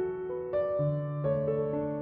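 Soft piano background music: slow, gentle notes, each held and overlapping the next.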